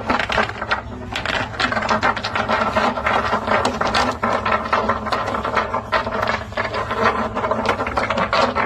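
A pet otter chewing a crunchy snack: a rapid, irregular run of crunching clicks that keeps up without a break.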